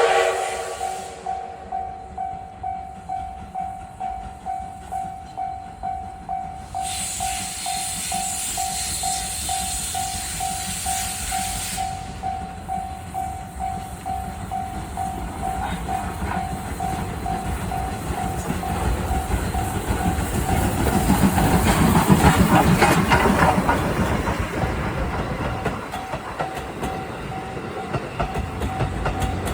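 Steam locomotive of the SL Yamaguchi pulling away: exhaust chuffs at about two a second, a spell of hissing steam, then the train passing loudest about two-thirds through with wheels clacking on the rails. A level-crossing warning bell rings steadily throughout.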